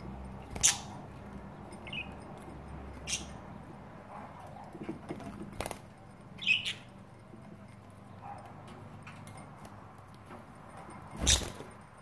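Budgies bathing in a shallow dish of water: a handful of short bursts of splashing and wing flutter, the loudest near the end, with an occasional soft budgie chirp between them.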